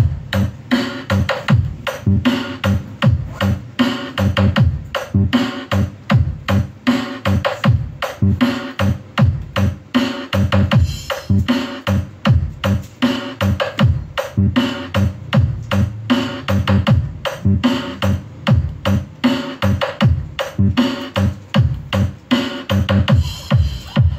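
Electronic music with a steady beat of about two heavy bass thumps a second.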